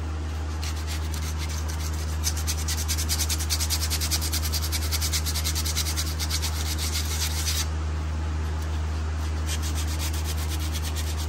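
Sandpaper rubbed quickly back and forth on a brake pad, a fast, even scratchy rasp. It stops about three-quarters of the way through and starts again briefly near the end.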